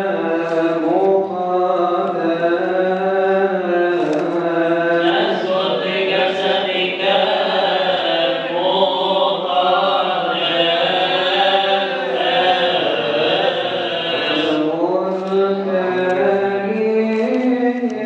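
Coptic Orthodox liturgical chant: a man's voice chanting long, slow melismatic phrases into a microphone, over a steady low held note.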